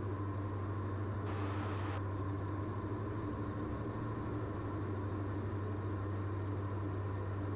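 Steady drone of the Diamond DA42 twin's engines and propellers heard inside the cockpit in level cruise, with a brief hiss about a second and a half in.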